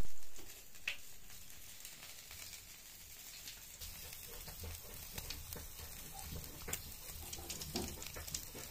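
Pork pieces sizzling on the wire rack of an electric grill, a steady frying hiss with scattered small pops of spitting fat. A brief loud noise comes at the very start.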